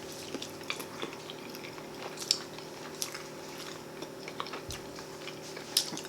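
Close-miked eating sounds: people biting and chewing barbecued baby back ribs, with scattered wet smacks and clicks. The louder smacks come about two seconds in and near the end, over a faint steady hum.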